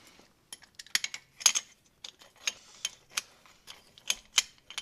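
About a dozen sharp metallic clicks and clinks, irregularly spaced, from a rear disc-brake caliper and its hardware being handled as the caliper is slid back over new brake pads.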